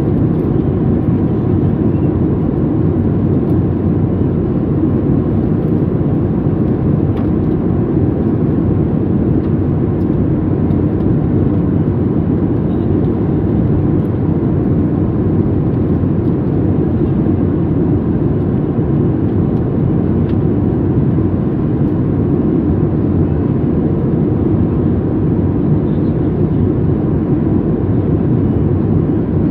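Steady cabin noise of a Boeing 737 MAX 8 in flight, heard from a window seat over the wing: airflow and the CFM LEAP-1B engines making an even, deep rush that does not change, as the airliner descends on approach.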